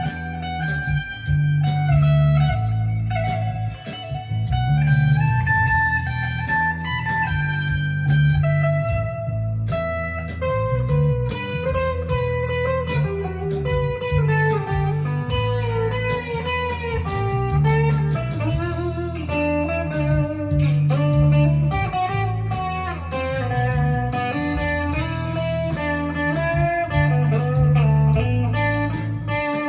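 Jackson Dinky JS22 electric guitar played through a Fender Mustang LT25 amp on its '60s Fuzz' setting: continuous melodic single-note playing with held notes and pitch bends, over a steady low-end rumble.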